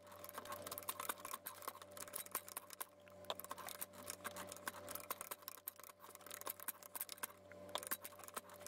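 Faint, rapid, irregular clicking of a hand ratchet pipe threader working its die head on 1-inch black iron pipe, sped up, over a low steady hum.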